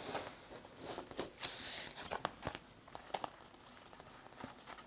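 Tarot cards being handled: faint soft rustling with scattered light clicks.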